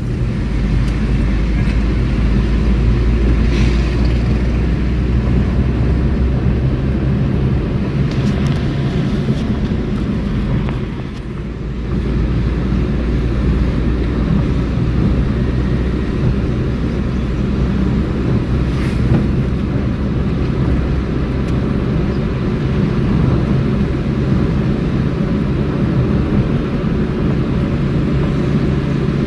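Car driving on the road, heard from inside the cabin: a steady low rumble of engine and tyre noise, easing briefly about eleven seconds in.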